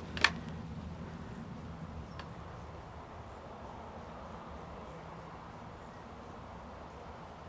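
A sharp click just after the start, a fainter tick about two seconds in, then faint steady background hum.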